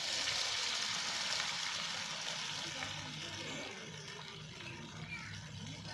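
Chicken leg pieces sizzling in hot oil: a loud hiss that starts suddenly, then settles to a lower sizzle after about three seconds.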